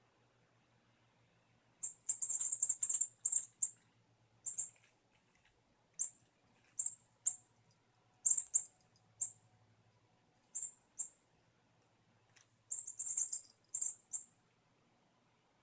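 Squeaky mouse ball toy squeaking in short, high-pitched chirps as a kitten bats it about, in quick runs of several squeaks and single squeaks with pauses between.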